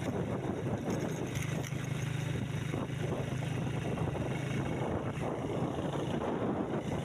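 A motor vehicle's engine running at a steady, even drone while travelling, with wind rushing over the microphone.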